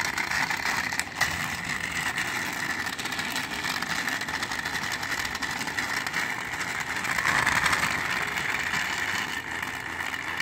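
Battery-powered toy train engines' small electric motors and gears whirring steadily on plastic track, a little louder about seven seconds in.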